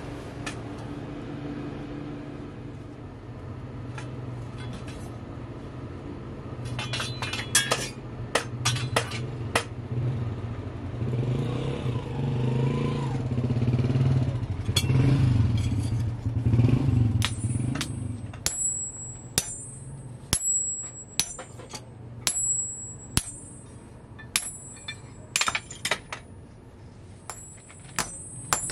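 Hand-forging an adze axe head. First a steady low hum with a few sharp metallic clinks; then, from about two-thirds of the way in, hammer blows on red-hot steel on the anvil at one or two a second, each with a high metallic ring.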